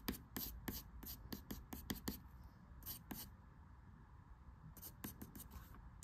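Yellow wooden graphite pencil scratching on paper in quick short strokes, several a second for about two seconds, then a short group of strokes, a lull, and another group near the end.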